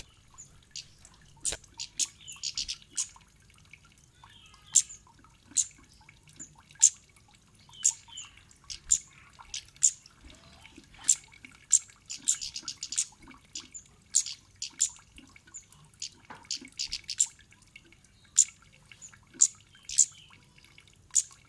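Cit kemade bird calling: short, sharp, high-pitched chip notes repeated irregularly about once or twice a second, with a few quick chattering runs of several notes.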